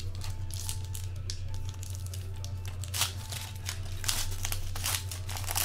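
Plastic trading-card pack wrapper crinkling and tearing as it is opened by hand. The sharp crackles come thicker in the second half, over a steady low hum.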